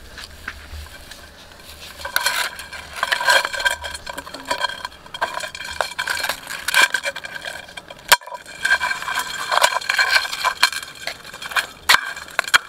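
A steel knife and a wooden stick scraping, clinking and knocking against a round iron pan holding live mud crabs, the metal ringing under the contact. It starts about two seconds in and goes on in busy, irregular strokes, with two sharp knocks, one past the middle and one near the end.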